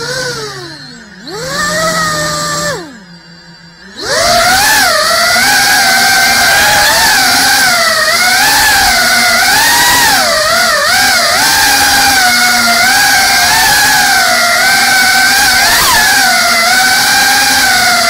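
Motors and propellers of a GEPRC Cinelog 35 cinewhoop FPV drone whining with the throttle. The pitch and volume drop away and come back twice in the first four seconds, then a loud whine wavers up and down in pitch.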